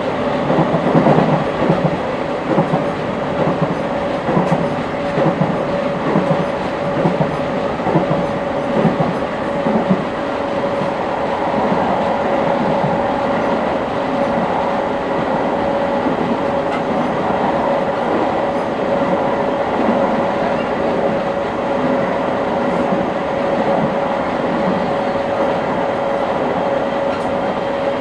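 Interior running sound of a JR 701 series 5500 electric multiple unit at speed between stations: a steady whine from the drive runs under the rumble and clack of the wheels on the rails. The rail clatter is heavier in the first ten seconds, then the ride evens out.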